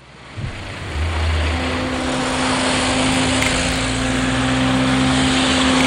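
City street traffic noise with a steady engine hum from a vehicle close by. It fades in over the first second.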